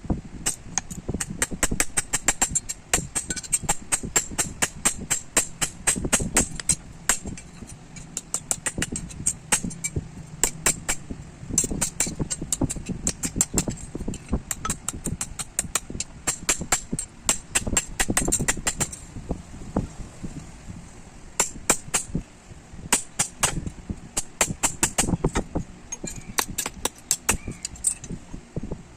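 Hammer striking hot leaf-spring steel on an anvil, a quick run of ringing metal blows several a second, with a short lull about two-thirds of the way through before the hammering picks up again.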